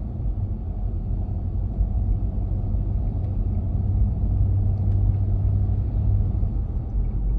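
Toyota Land Cruiser pulling away under throttle at low speed, with a steady low rumble like an exhaust leak from between the engine and gearbox. The noise comes from cracked flywheel mounting bolts, and it shows under load between 20 and 40 km/h.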